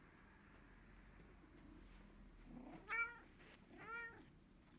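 Domestic cat giving two short meows about a second apart, each rising and falling in pitch, in reply to her name being called.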